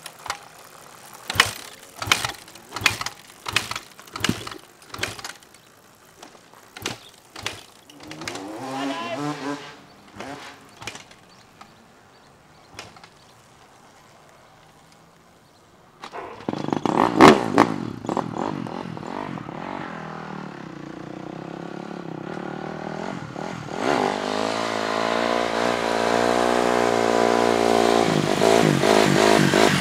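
Honda dirt bike engine: a series of sharp knocks in the first few seconds, then the engine comes in loud about halfway through and runs on, its pitch rising and wavering as it is revved near the end.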